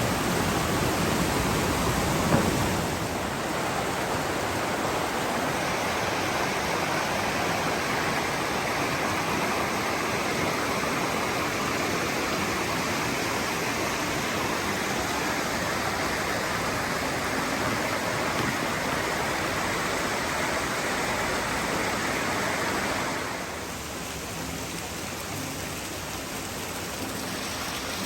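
Mountain stream rushing over cascades, a steady full hiss of water; it gets somewhat quieter about 23 seconds in.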